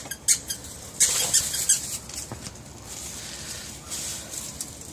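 Puppies at play, with a quick run of high-pitched squeaks about a second in and lighter scattered ticks after.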